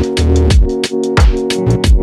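Electronic music with a fast drum beat, held synth chords and deep bass notes that drop in pitch.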